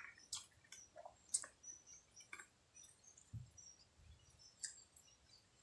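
Faint, scattered clicks and soft smacks of someone eating, with a few short high bird chirps in the background.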